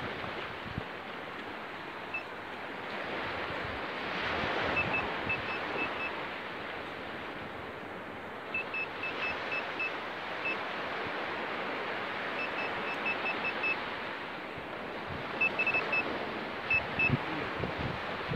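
Handheld pinpointer probe beeping in short runs of rapid, high-pitched beeps as it is pushed through a pile of wet sand, signalling a buried metal target. A steady hiss of wind and surf runs underneath.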